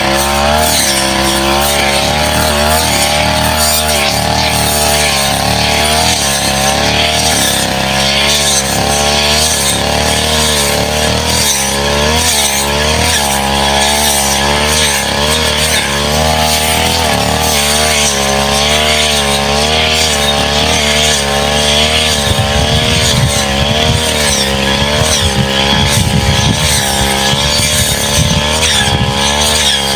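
Brush cutter running at high speed, its engine pitch wavering up and down without pause as the blade cuts through saplings and brush.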